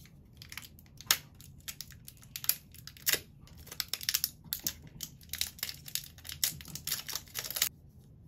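Plastic skincare bottles and caps being handled at a sink: a quick, irregular run of sharp clicks and taps that stops abruptly near the end.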